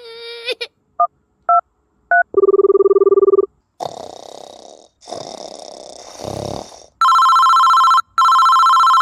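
Phone sound effects: three short keypad beeps as a number is dialled, then a steady tone about a second long. After a few seconds of hiss comes an electronic ringtone in two long rings.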